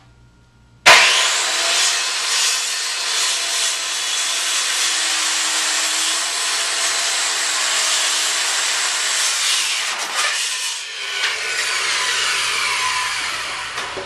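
A power saw cutting through a pressure-treated pine 2x8 board, starting suddenly about a second in and running steadily, with a brief lull around ten seconds in.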